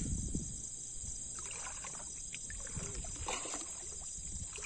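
Steady high-pitched chirring of night insects, with scattered splashes and knocks in the water over it, the busiest in the middle.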